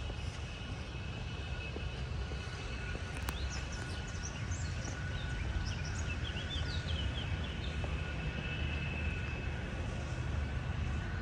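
Outdoor ambience in a riverside park: a steady low rumble, with small birds chirping in short quick notes through the middle.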